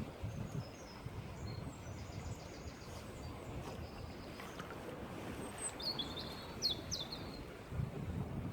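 Small birds chirping outdoors: a few short calls about two seconds in and a quick cluster of chirps around six to seven seconds, over a steady low background rumble.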